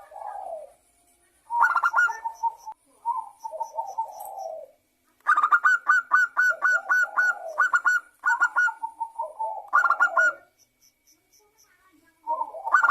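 Zebra dove (perkutut) cooing: phrases of quick staccato notes that fall into a lower rolling coo. The phrases repeat several times, with one long run of notes in the middle.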